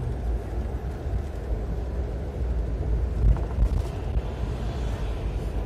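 Steady low rumble of a coach bus on the move, heard inside the passenger cabin: engine and road noise.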